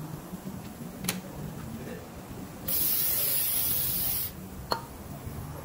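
One burst of pressurised spray hissing for about a second and a half, from brake-cleaner aerosol or a compressed-air blow gun. There is a sharp click about a second in and another just after the spray.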